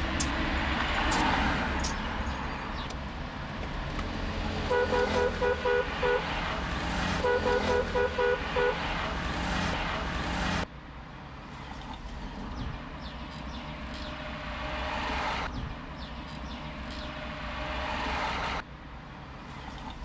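Street traffic heard from a moving car. Partway in a vehicle horn gives two quick runs of about six short beeps each, the loudest sound. A little past halfway the traffic noise drops suddenly to a lower level.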